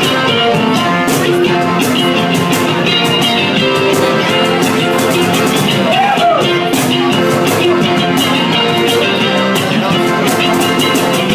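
Live rock band of accordion, electric guitar and cajón playing an instrumental passage. The accordion holds chords over the strummed guitar, and the cajón keeps a steady beat.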